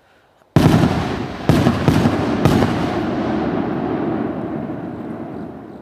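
Fireworks bursting close by: a sudden loud bang, three more sharp bangs over the next two seconds, then a long rumbling echo that slowly fades.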